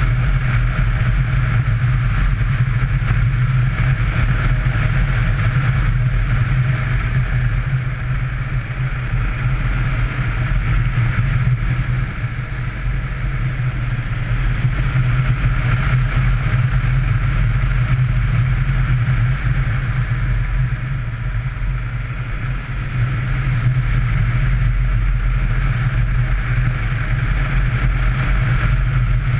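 Yamaha Ténéré motorcycle engine running steadily on the move, with a rushing wind and road noise over it. The engine eases slightly for a couple of seconds about two-thirds of the way in.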